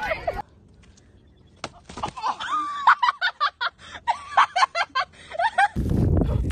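A person giggling in short, choppy bursts with a few clicks, then about six seconds in a loud low rushing noise takes over.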